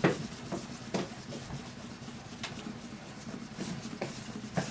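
A tissue rubbed back and forth over a knife handle, polishing the sanded surface to a shine: a string of short rubbing strokes, the strongest at the very start and about a second in.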